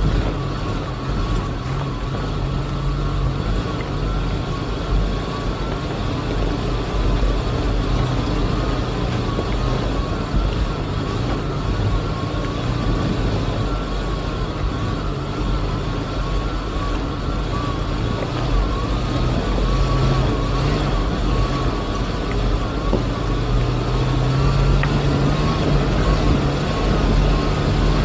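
Multirotor drone propellers whining steadily, the pitch wavering slightly as the throttle changes, over a low rumble; the low hum grows stronger near the end.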